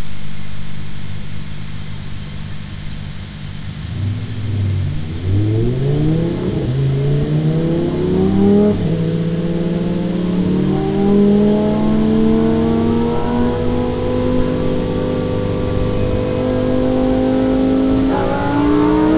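A 1,000-horsepower Lamborghini Huracán's V10 engine heard from inside the cabin, running steadily at first. About four seconds in it accelerates hard, its pitch climbing and dropping back with each quick upshift, then climbing slowly in a higher gear.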